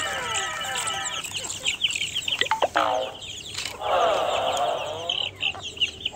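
Chicks peeping in many quick, high chirps, with a hen giving a louder, lower clucking call about four seconds in.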